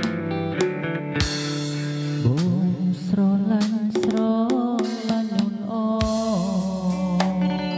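Music with drums and a melody that slides up and down in pitch.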